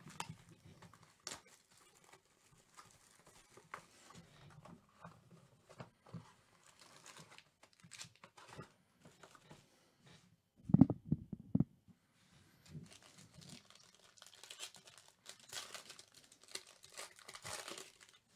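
Plastic shrink-wrap being peeled off a trading-card box, then a foil card pack crinkling as it is handled and torn open. A short run of louder knocks about eleven seconds in.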